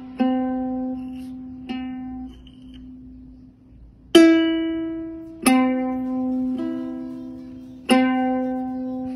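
Ukulele strings plucked by a cat's paw: about six single notes at uneven gaps, each ringing on and slowly fading.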